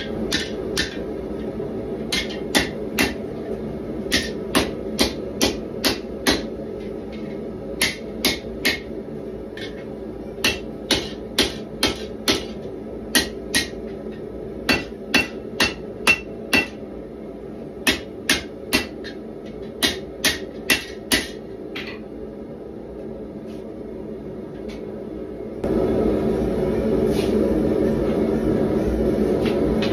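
Hand hammer striking a red-hot 1095 carbon-steel bar on an anvil: a long series of ringing blows, mostly about two a second in short runs with brief pauses, which stop about 21 seconds in. A steady propane forge burner runs underneath and grows louder about 26 seconds in, as the bar goes back into the forge.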